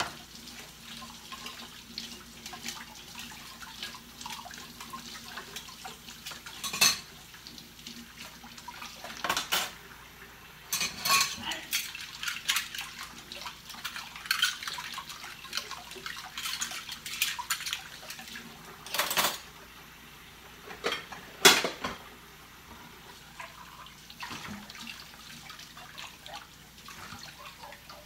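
Dishes being washed by hand in a stainless steel kitchen sink: plates, pans and cutlery clink and clatter against each other and the sink at irregular intervals, over a low wash of water. The loudest clank comes about three quarters of the way in.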